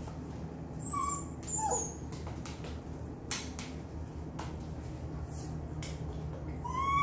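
A small dog whimpering: two short high whines about a second in, the second falling in pitch, then a longer whine rising near the end. Under it are a steady low hum and a few light clicks.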